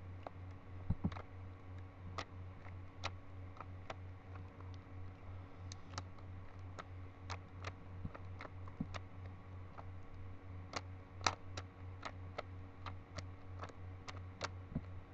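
Rubik's Cube layers being turned by hand: irregular sharp plastic clicks, sometimes several in quick succession, over a steady low hum.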